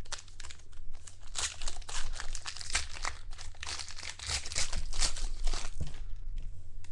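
Crinkling and tearing of a trading card pack wrapper as cards are handled, a dense, irregular rustle that grows quieter about six seconds in.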